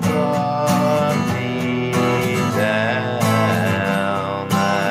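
Acoustic guitar strummed in chords, with a fresh strum landing every second or so and the chords ringing between strums.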